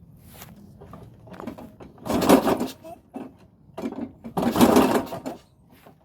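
Mechanical clicking and clattering from working on a Makita lawn mower, with two short, louder rasping bursts about two seconds and four and a half seconds in; the engine is not running.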